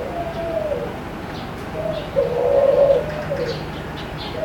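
A dove cooing in low, wavering phrases, loudest about halfway through, with a few brief faint high chirps from a small bird.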